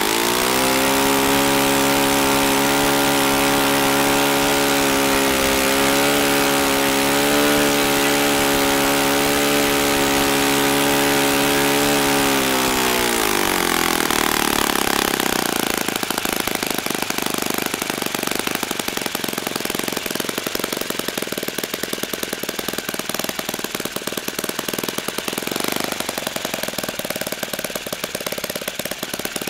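Saito FA-40 four-stroke glow engine swinging an 11x6 propeller, running at full throttle at about 8,200 RPM with a steady high note and prop whir. About 13 seconds in it is throttled back, the pitch falling, and it settles into a slower, pulsing idle.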